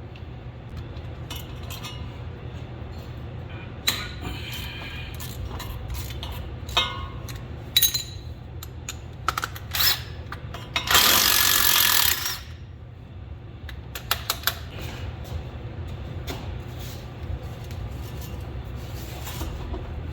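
Hand tools clinking and knocking against metal while bolts are worked loose under a truck, over a steady low hum. A loud burst of hissing noise lasts about a second and a half a little past the middle.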